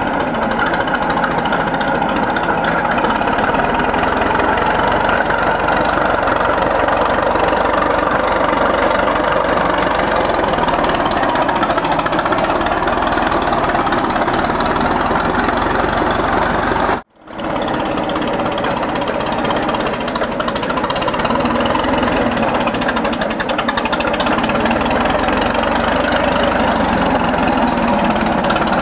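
McCormick-Deering 10-20 crawler tractor's four-cylinder engine running steadily with a fast, even firing beat as the tractor drives along on its tracks. About two-thirds of the way through, the sound drops out for a moment.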